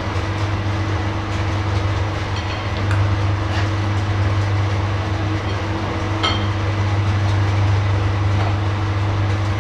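Steady low machine hum with a faint higher tone over it and a few scattered light ticks.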